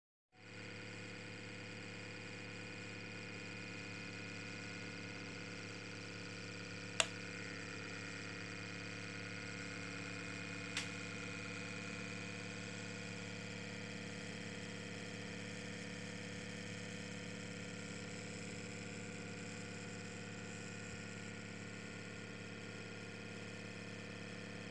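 Small Bedini motor's magnet rotor spinning steadily at high speed, about 5,200 rpm: an even whirring hum made of several held tones. Two sharp clicks, about seven and about eleven seconds in.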